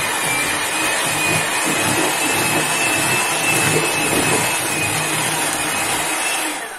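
Electric hand mixer running steadily, its twin beaters creaming sugar and ghee in a plastic bowl, with a faint high whine from the motor; it cuts off near the end.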